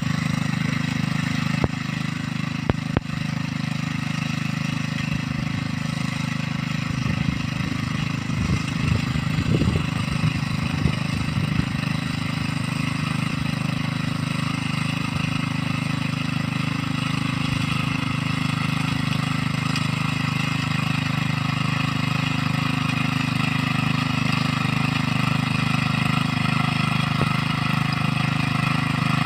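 Small engine of a mini rice-field plowing machine running steadily. A few sharp clicks come about two to three seconds in, and an uneven low rumble comes and goes around ten seconds in.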